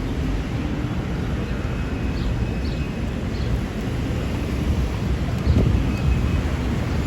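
Steady low rumble of city street traffic, with wind on the microphone and a brief louder swell about five and a half seconds in.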